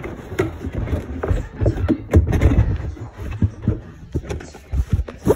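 Irregular knocks, scrapes and rustling of a cardboard toy box being handled right against the phone's microphone.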